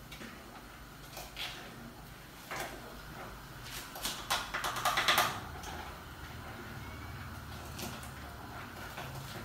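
Plastic ladle stirring and scooping in an aluminium saucepan on a gas cooker, with scattered scrapes and knocks and a quick run of clattering scrapes about four to five seconds in, over a low steady hum.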